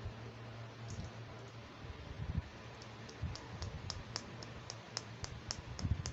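Yellow plastic toy scissors from a doctor playset being snapped open and shut: a quick run of sharp plastic clicks, about four a second, starting about three seconds in, with a few soft handling thumps.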